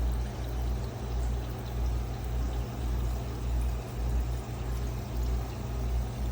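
Water running steadily, over a low rumble that rises and falls.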